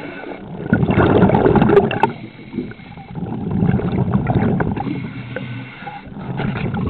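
Underwater bubbling and water rushing heard through a camera housing, coming in surges every few seconds. The loudest, most crackling surge is about a second in; a lower, duller swell follows in the middle and another starts near the end.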